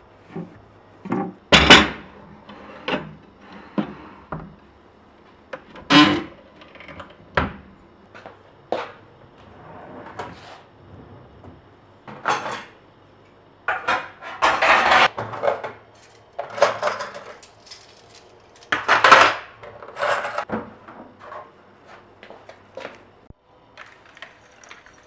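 Kitchen items being handled during cleaning: a string of separate knocks and clinks of dishes, utensils and wooden things being picked up and set down, with a few longer, noisier stretches of handling.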